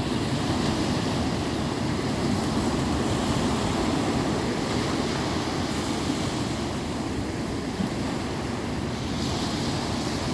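Sea surf washing steadily onto the shore, with wind buffeting the microphone.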